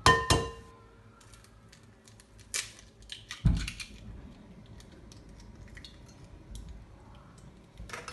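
Kitchen utensils and bowls being handled: a sharp ringing clink of metal or glass at the start, then scattered light taps and clicks, with a dull knock about three and a half seconds in.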